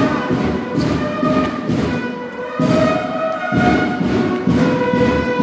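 School banda de guerra (drum and bugle corps) playing: bugle notes held and changing over a steady drum beat of about one stroke a second.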